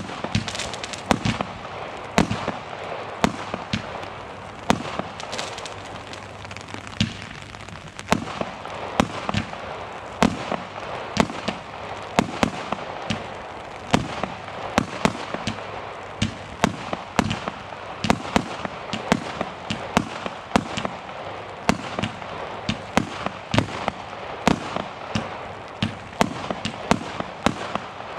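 Consumer fireworks battery firing shot after shot: dozens of sharp bangs, about two a second, over a continuous crackling hiss, stopping at the end.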